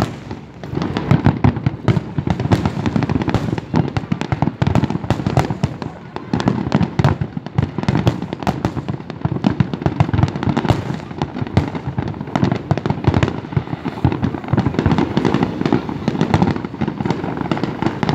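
Fireworks going off in a dense, continuous barrage of rapid cracks and bangs over a low rumble.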